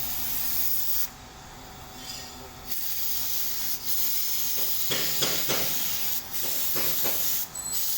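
Steady hiss of compressed air from a bodywork air tool. It cuts out for over a second about a second in, then a few more times briefly as the trigger is let go.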